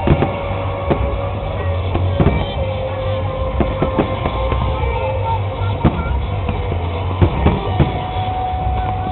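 Loud music with a heavy beat plays for a fireworks show. Sharp firework bangs break through it about nine times, unevenly spaced.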